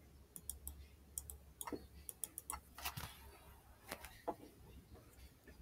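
Faint, irregular clicks and taps of a stylus writing on a tablet.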